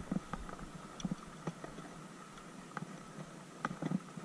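Soft, irregular clicks and taps from hands working a fishing hook, line and float close to the microphone, about a dozen in all with no steady rhythm.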